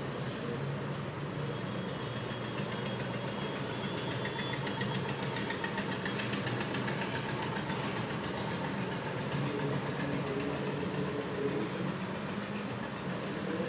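Steady mechanical hum of a running motor, a low drone with a fine, fast, regular ticking through the middle.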